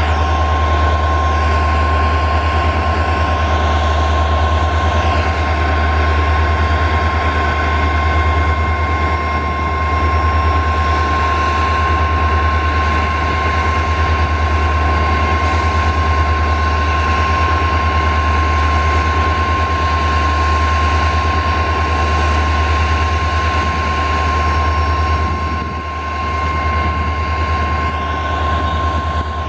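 Twin EMD WDG4 (GT46MAC) diesel locomotives working at high notch, their turbocharged 16-cylinder two-stroke engines running loud and steady under heavy load with a steady high whine over a deep rumble, as they strain to start a loaded freight train up a gradient.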